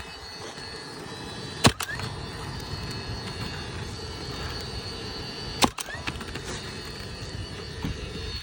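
Roofing nail gun firing nails into a replacement asphalt shingle: two sharp double-cracks about four seconds apart, one near two seconds in and one near six seconds in.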